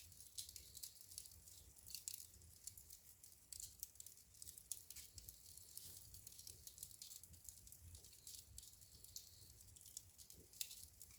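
Burning firewood crackling in a fireplace: a steady run of small, quick pops and snaps, with a few louder ones, over a faint low rumble.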